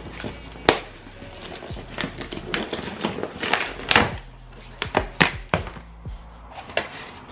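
Background music with irregular sharp taps and clicks throughout.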